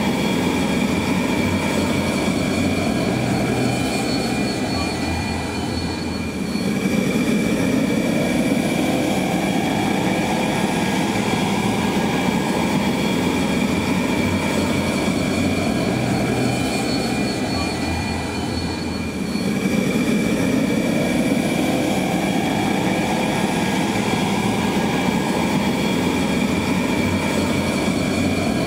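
Jet engine running steadily: a constant high whine over a dense rumble, swelling and easing about every thirteen seconds.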